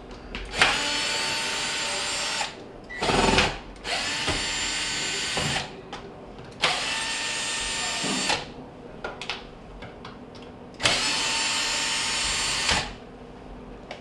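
Cordless drill/driver running in four steady runs of about two seconds each, backing out four screws, with short knocks between the runs.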